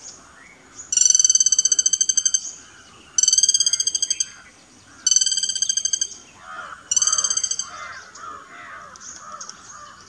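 Greater flameback calling: four fast, trilled calls, each a rapid run of notes about a second long, the later ones a little shorter.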